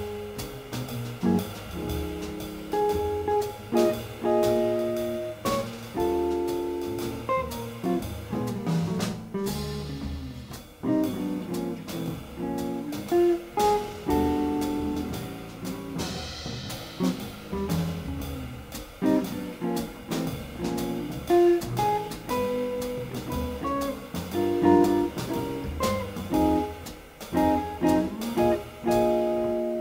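Jazz trio playing live: electric guitar picking single-note lines over double bass and drum kit with cymbals.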